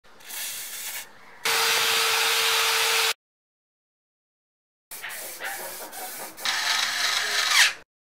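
Aerosol can spraying through a red straw onto a rusty bicycle chain: a steady hiss with a faint steady tone that stops abruptly. After a silent gap, a few seconds of rubbing and scraping.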